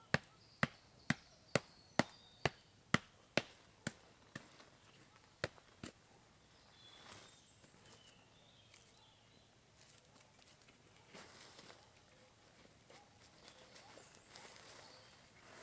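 Fire-hardened clay shell baked around a chicken being knocked repeatedly to crack it open: about a dozen sharp knocks, roughly two a second, that thin out and stop about six seconds in. After that only faint noise remains.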